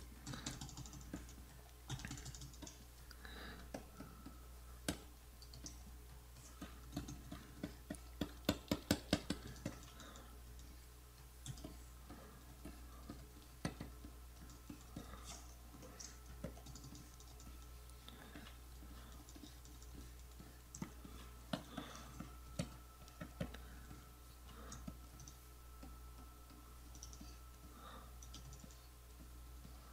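Faint, scattered clicks of computer keyboard keys, with a quick run of presses about eight to nine seconds in, over a low steady hum.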